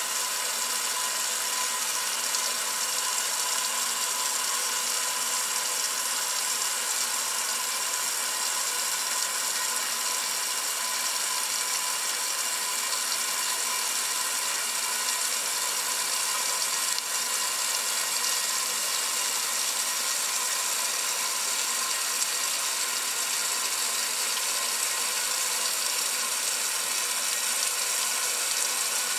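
1968 Kenmore top-loading washing machine filling: a steady hiss of water running into the tub, with a steady hum under it.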